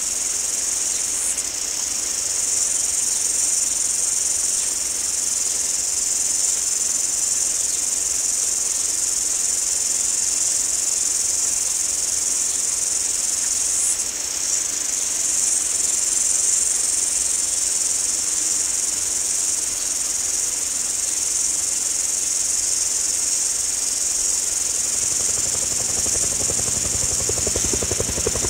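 A steady, high-pitched chorus of insects shrilling without a break. A low rumble starts to build near the end.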